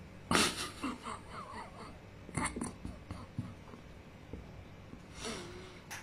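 Pair of African grey parrots making soft vocal noises while preening each other: a short breathy huff about a third of a second in, then scattered faint clicks and little squeaks, and a brief low whistle near the end.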